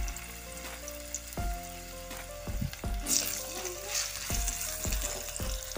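Potato cubes sizzling as they fry in hot oil in a pan, stirred with a spatula that knocks and scrapes against the pan several times.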